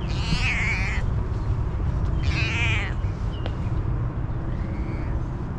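A hungry stray cat meowing twice, two drawn-out wavering meows, then a faint shorter call near the end, over a steady low rumble.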